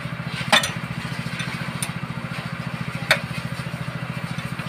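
An engine idling with an even throb, cut by two sharp knocks, one about half a second in and one about three seconds in.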